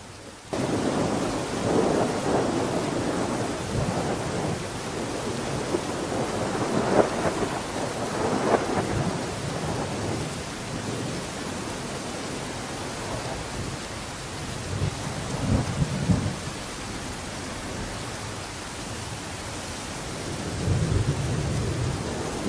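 Steady rain-like rushing noise with irregular rolling rumbles, like thunder, that starts abruptly about half a second in.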